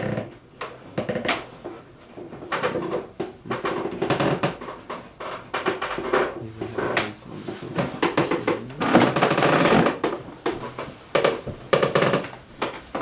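Indistinct voices of several people talking in a small room, unclear and overlapping, with scattered knocks and handling clatter.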